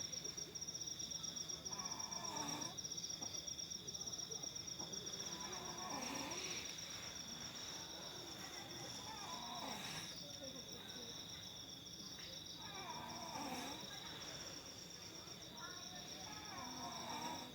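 A person snoring, one snore about every three and a half seconds, over the steady high trill of crickets.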